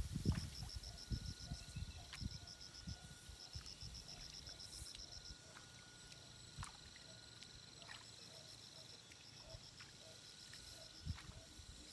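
Insects chirping in quick trains of short high pulses, each train lasting about a second, over a steady high buzz. A few low thumps come in the first second or two.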